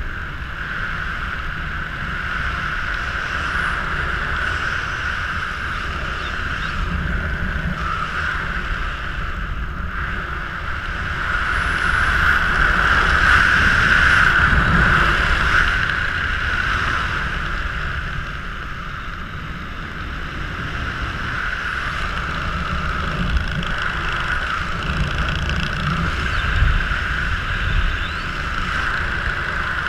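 Wind rushing over the camera microphone while a skydiver flies under an open parachute canopy, a steady rush that swells about halfway through and then eases.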